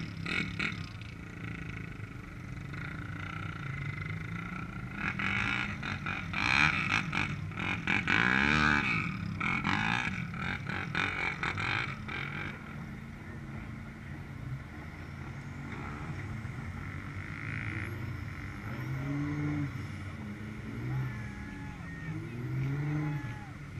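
Distant pickup truck engines running and revving in a mud pit. The engines are loudest from about five to twelve seconds in, with one engine revving up and back down, then settle to a quieter running sound.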